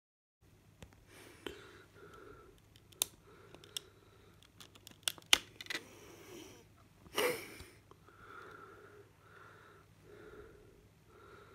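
Plastic CD jewel case being handled and opened: a series of sharp clicks and snaps, then a louder crackling burst about seven seconds in as the disc is worked off its tray.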